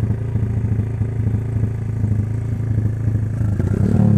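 Motorcycle engine idling steadily, its revs starting to rise near the end.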